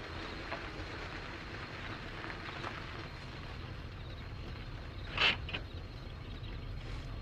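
Car engine running and wind noise while driving, a steady low rumble. About five seconds in there is one brief, sharp, louder sound.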